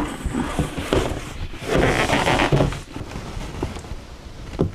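Cardboard of a large boxed LEGO set being handled: flaps and packaging rustling and scraping, with a few short knocks.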